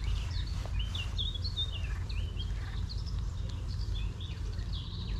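Small birds chirping and twittering: many short, quick calls that go on throughout, over a steady low rumble.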